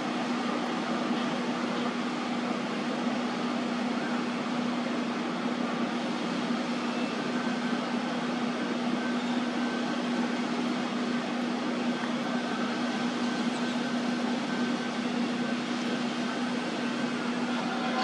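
A steady machine hum with a constant low tone over a broad hiss, unchanging throughout.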